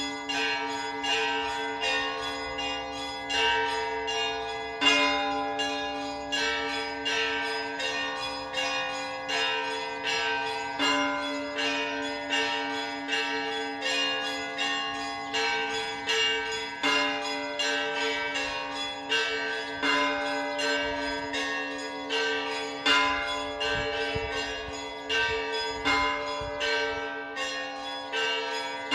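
Orthodox church bells ringing a full peal: rapid strokes on the small bells over steadily ringing middle bells, with the deepest bell struck about every six seconds.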